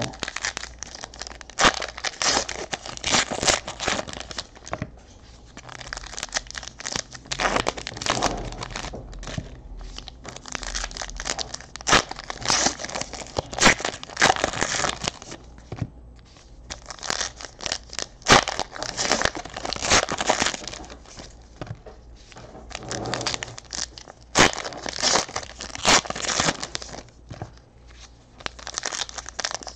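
Foil trading card pack wrappers being torn open and crumpled by hand, in repeated bursts of crinkling and tearing with sharp crackles, with short quieter gaps between packs.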